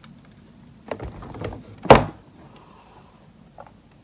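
Handling noise: a few light knocks, then one sharp, loud thump about two seconds in, as objects are moved and bumped right against the recording phone.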